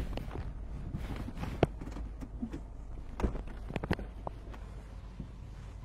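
A few sharp clicks and knocks, scattered a second or so apart, over a low car-engine rumble that fades as the taxi comes to rest.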